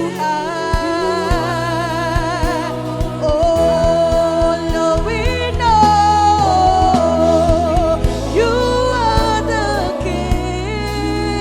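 Live gospel worship music: a solo voice singing long, wavering held notes over bass, keyboard and a steady drum beat.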